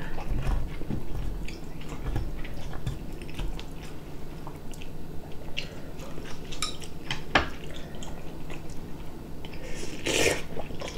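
Eating sounds at a meal table: a spoon and chopsticks clicking against ceramic bowls, with chewing and the wet sounds of scorched-rice porridge (nurungji). One sharper clink comes about seven seconds in.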